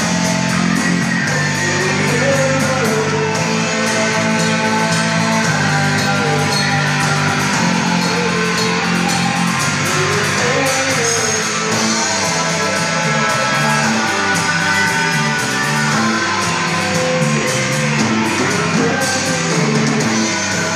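Rock band playing live: electric guitars over bass and a drum kit, with a man singing into the microphone.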